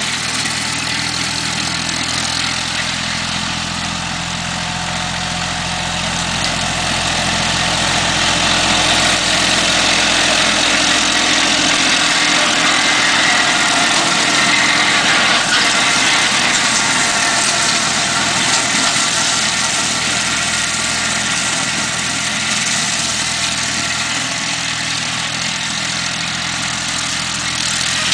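Yanmar F16 compact diesel tractor running steadily with its PTO-driven 115 cm rotary mower cutting grass: a continuous engine note under a broad whir from the mower. It grows louder toward the middle as the tractor passes close, then eases off again.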